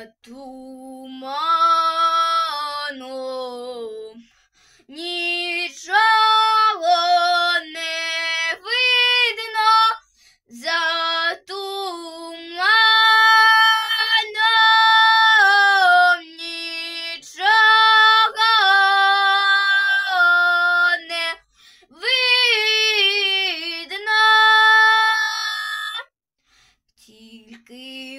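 A young girl singing a Ukrainian folk song unaccompanied, in long held phrases with short breaks for breath, about four of them.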